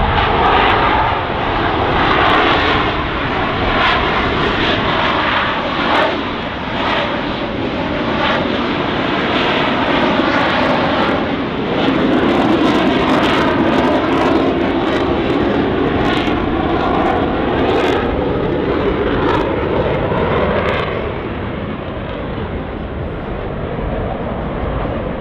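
Engines of military display aircraft passing low overhead: a loud, continuous rush whose pitch sweeps up and down as the aircraft go by, easing somewhat near the end.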